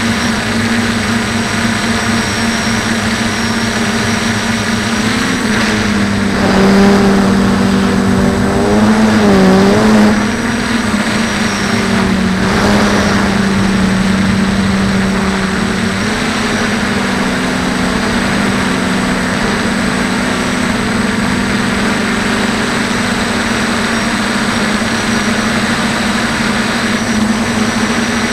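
DJI F450 quadcopter's four electric motors and propellers buzzing steadily, recorded on board the craft. The pitch wavers and the sound swells for a few seconds near the middle as the throttle changes.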